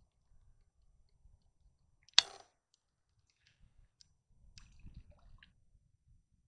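A single sharp splash at the water's surface about two seconds in, followed by faint scattered drips and small clicks.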